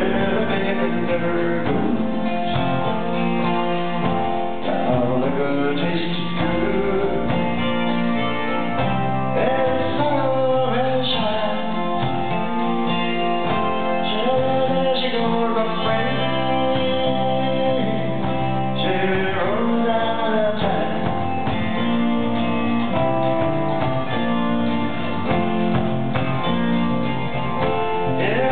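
Live band performing a country-folk song: acoustic guitar, electric bass, electric guitar, keyboard and drums, with a male voice singing, recorded from the audience in a concert hall.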